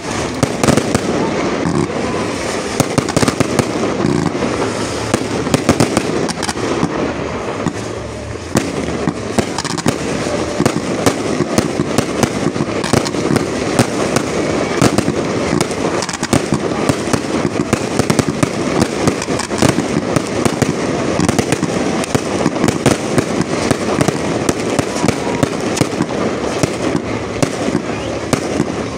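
Fireworks display firing a continuous barrage: dense, rapid crackling and popping with frequent louder bangs, hardly a break throughout.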